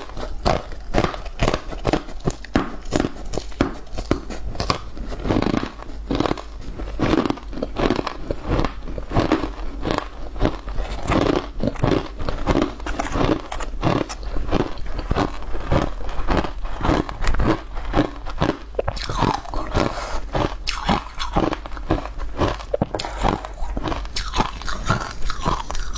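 A person biting and chewing a crunchy, powder-coated green snack stick, close to a clip-on microphone: a dense run of crisp crunches, several a second.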